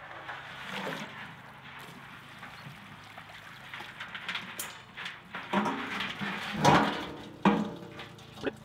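Live crayfish tipped from a galvanized metal washtub into a stainless steel pot: a splash of water pouring, and a scrabbling clatter of shells and clicks on the metal. The metal rims knock and ring, loudest in a few sharp knocks about two thirds of the way in.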